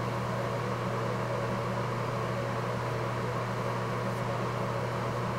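Steady low buzzing hum of a small motor running, unchanging throughout.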